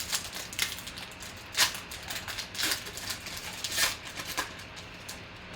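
Football trading cards being handled and flipped through, an irregular run of short clicks and rustles, the sharpest about a second and a half in and again near four seconds.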